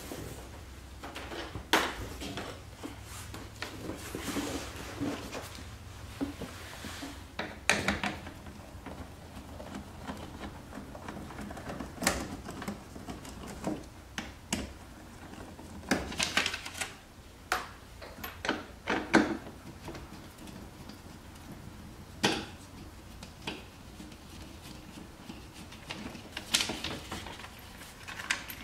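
Irregular clicks, knocks and small clatters of a hand tool working screws loose from a car's rear bumper, with some short runs of quick clicks, over a faint low hum in the first half.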